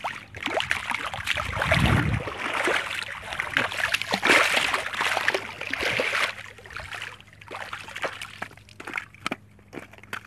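A pike thrashing and splashing in shallow water over stones as it is landed, with a low thump about two seconds in. The splashing is loudest for the first six seconds, then dies down to scattered small splashes and knocks.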